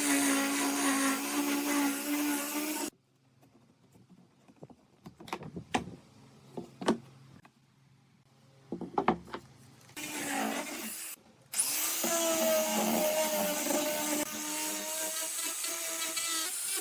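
A power tool working wood runs with a steady whine and cuts off abruptly about three seconds in. A quiet stretch follows with a few sharp knocks and clicks, then the tool runs again from about twelve seconds in, its pitch dipping slightly as it bites.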